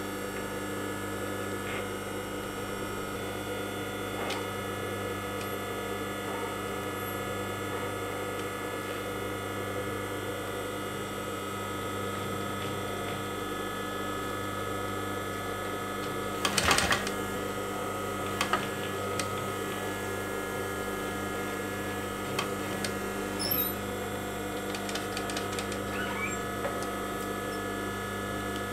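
Post-bed industrial sewing machine running as a leather strap is stitched over a shoe's back seam: a steady motor hum, with one short, loud burst of clicking a little past halfway and a few lighter clicks after it.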